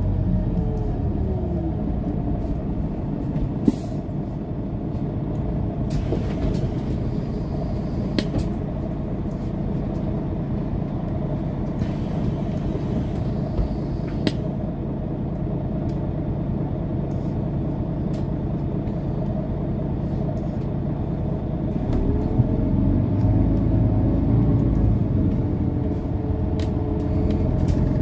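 Inside a 2011 Mercedes-Benz O530 Citaro Facelift city bus on the move: a steady engine and road drone with a few short rattles. About 22 s in the engine note rises and the drone gets louder as the bus accelerates.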